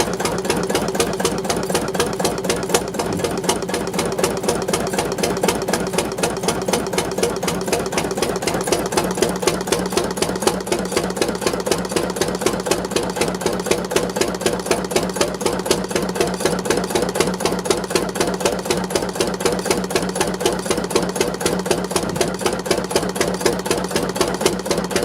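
Schlüter single-cylinder vaporizer (Verdampfer) stationary engine running steadily, with a rapid, even knocking beat.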